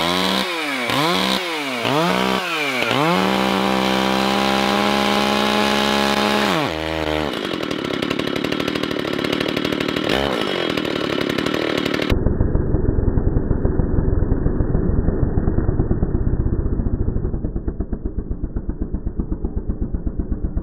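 Stihl 036 two-stroke chainsaw revved in short blips, then held wide open. About seven seconds in the high note drops away suddenly as the chain bites into the chainsaw chaps and their fibres jam it, and the saw runs on at a lower, rougher note. From about twelve seconds in the sound turns duller, with a rapid pulsing near the end.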